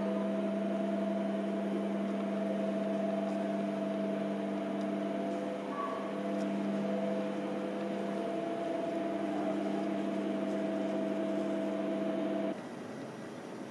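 A steady machine hum made of several fixed tones over a low hiss, which cuts off suddenly near the end.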